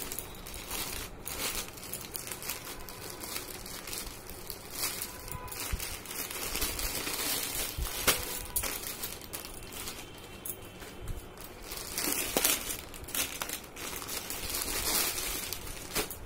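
A parcel's wrapping being opened by hand, with no knife or scissors: continuous, irregular crinkling and tearing of the packaging.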